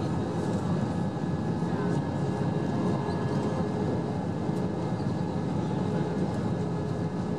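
Steady in-cabin rumble of an Airbus A321 on approach with flaps extended, from engine and airflow noise, with a faint steady hum above it.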